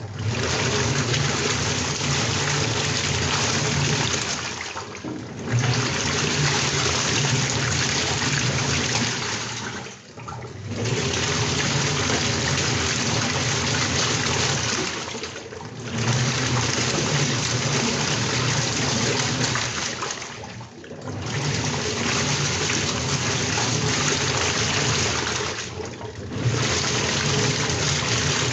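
Water rushing and churning in a washing machine. It is a steady, loud wash that dips briefly about every five seconds.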